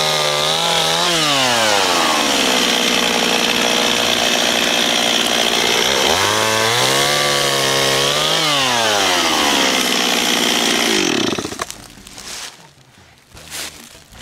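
Stihl chainsaw engine revving to full throttle to cut a log, dropping back to a steady idle, then revving up and cutting again before easing back to idle. About eleven seconds in the engine is shut off abruptly, followed by a couple of faint knocks.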